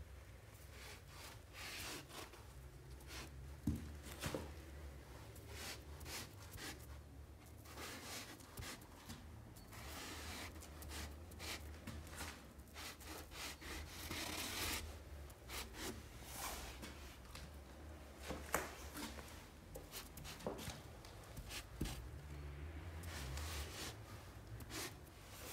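The felt tip of a homemade graffiti mop marker rubbing across wallpaper in many short hissy strokes as a tag is written, with a few sharp clicks among them over a low steady hum.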